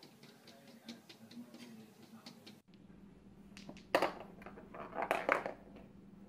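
Balls on a small tabletop toy pool table clacking against each other and the rails as a cat bats at them: a sharp knock about four seconds in, then a quick cluster of clicks a second later. Faint ticking before that.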